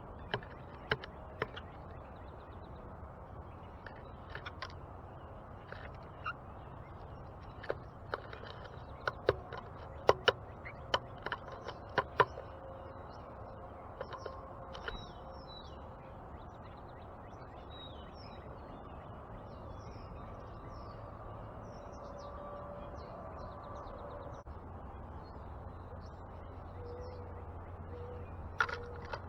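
Backyard bird feeder sounds: a run of sharp taps and clicks through the first dozen seconds and once more near the end, with faint short bird chirps in between, over a steady low background rumble.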